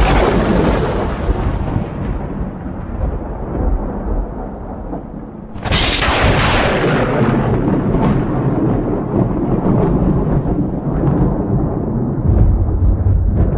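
Thunder: a loud, sharp crack of nearby lightning rolling into a long low rumble, with a second crack about six seconds in that also rolls into rumbling.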